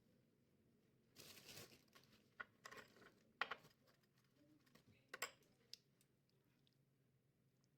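Faint handling sounds: a brief rustle or crinkle about a second in, followed by several sharp clicks and taps scattered over the next few seconds.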